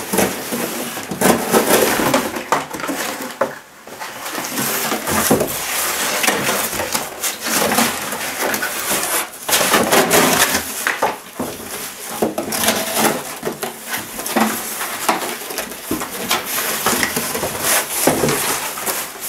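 Extrema Ratio Task C knife cutting and tearing through a corrugated cardboard box in repeated long strokes, with the cut cardboard scraping and rustling. The blade is drawn with pull and pressure so the box falls apart in shreds.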